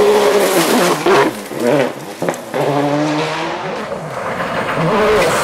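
Toyota Yaris WRC rally car's turbocharged 1.6-litre four-cylinder engine revving hard on gravel, its pitch rising and falling through gear changes, over a gritty spray of stones. There is a sharp bang about two seconds in.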